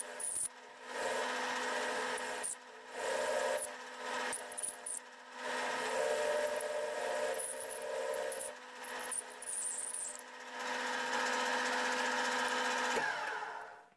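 Paulimot PM2500 metal lathe running with a steady hum while a homemade chamfering tool cuts a steel bolt shaft in several scraping passes, with short pauses between cuts. The lathe stops about a second before the end.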